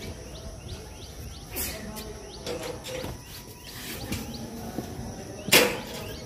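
A high, short chirp repeated steadily about twice a second, with a brief rush of noise about five and a half seconds in.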